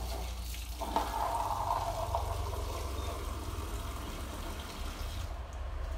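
Water running from a bathroom wall tap, shut off about five seconds in, with a low hum underneath.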